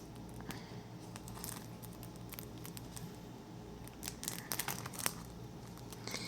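Faint crinkling and rustling of paper or plastic packaging being handled, a scatter of small ticks that gets busier about four to five seconds in.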